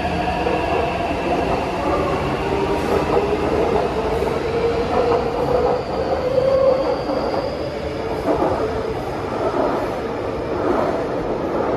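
Taipei Metro C381 electric train accelerating out of an underground platform. Its traction motors whine, rising steadily in pitch, over the noise of the wheels on the rails.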